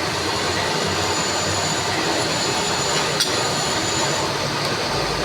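Lathe running steadily while turning a flange, with a single sharp click about three seconds in.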